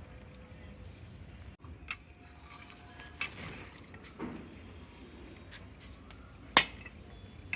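Spanner or wrench clinking against the hand pump's metal head and bolts while the top bolts are being unscrewed: scattered sharp metallic clinks with brief ringing, the loudest near the end.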